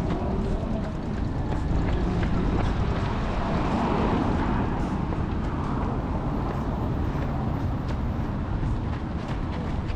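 Steady city street traffic noise, swelling as a vehicle goes by near the middle, with some wind on the microphone.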